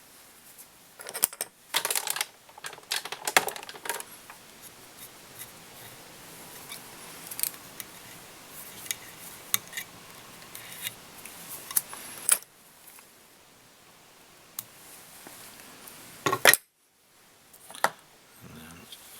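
Small clicks, ticks and rustles of fly-tying tools handled at the vise as the fly's head is finished off with thread, busiest in the first few seconds, with one sharp click about three-quarters of the way through.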